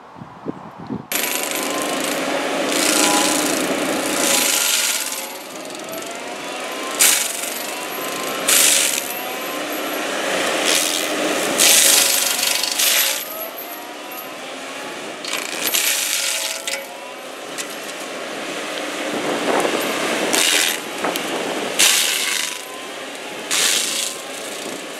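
FAE stump grinder's toothed rotor, driven off a forestry excavator, grinding into a tree stump. It starts about a second in and runs loud and continuously, with a wavering whine underneath. Sharp loud cracks come every few seconds as the teeth bite and wood chips and stones clatter out.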